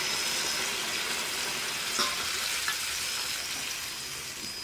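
Water poured from a metal kettle into a hot kadai of curry, sizzling steadily as it hits the hot gravy, with two light clicks about two seconds in.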